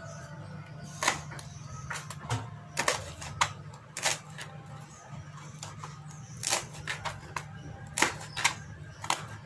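Kitchen knife slicing bird's eye chillies on a plastic cutting board: irregular sharp taps of the blade striking the board, over a steady low hum.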